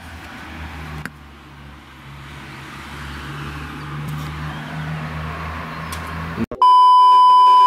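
Low, steady hum of a car engine in the street, slowly growing louder, then about six and a half seconds in it cuts off and a loud electronic beep at one high pitch sounds for about a second.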